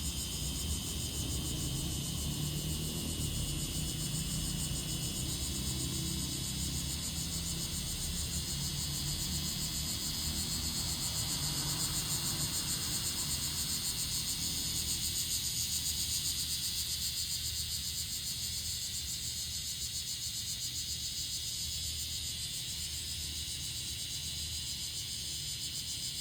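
Bear cicadas (kumazemi) singing: a continuous, high-pitched, rapidly pulsing buzz that swells a little in the middle. A faint low rumble sits underneath in the first half.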